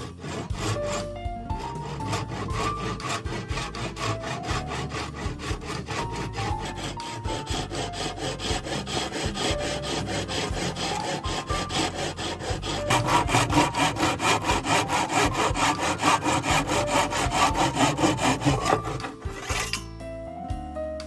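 Hand saw cutting wood with rapid, even back-and-forth strokes, guided at a 45° angle by a homemade jig. The strokes grow louder about two-thirds of the way through and stop about a second before the end, with background music underneath.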